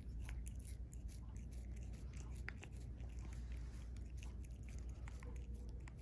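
A cat chewing and gnawing on a herb-coated chew stick: many small, irregular crunching clicks.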